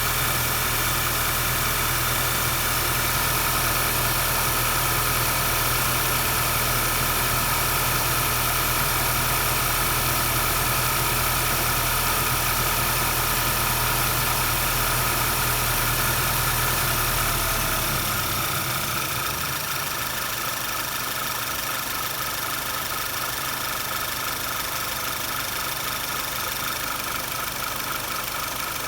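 Audi A5 2.0 TFSI turbocharged four-cylinder engine idling after a start, running with a shake that the owner suspects comes from a vacuum leak. About eighteen seconds in, the deep low hum drops away and the sound gets somewhat quieter.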